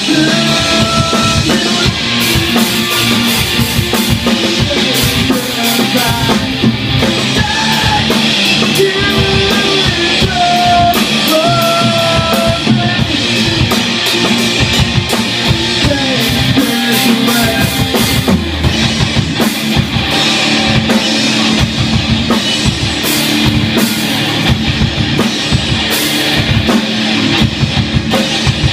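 A live rock band playing loudly: electric guitars over a drum kit.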